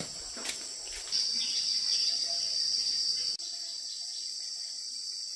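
Insects chirring in a steady high-pitched drone. It grows louder about a second in and drops off suddenly about three and a half seconds in.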